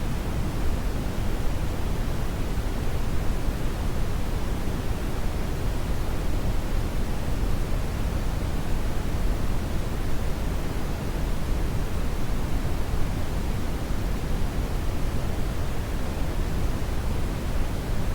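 Brown noise: a steady, even rushing hiss, weighted heavily toward the deep end, with no changes or events.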